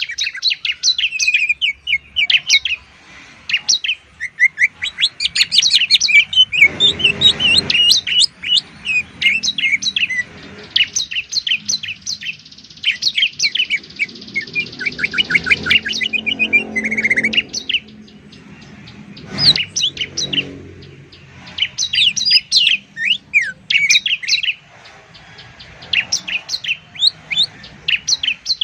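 Songbirds, a greater green leafbird (cucak ijo) and a bar-winged prinia (ciblek), singing in fast runs of sharp, high chirps and rapid trills, with hardly a pause. A short burst of noise comes about seven seconds in.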